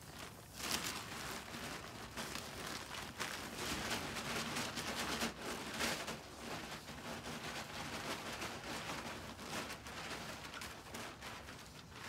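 Dense crackling rustle of loose straw and hay bedding being emptied from a woven sack and pushed and spread by hand inside a wooden hog house.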